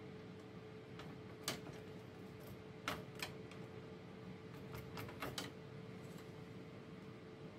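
A handful of light plastic clicks and taps from the guide rails being fitted into a Xerox WorkCentre 3335/3345 flatbed scanner frame by hand, over a steady faint hum.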